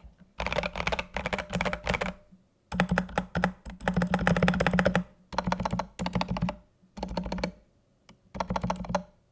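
Mechanical keyboard fitted with Gazzew Boba U4T tactile switches being typed on: bursts of rapid keystrokes broken by short pauses, about five runs of typing.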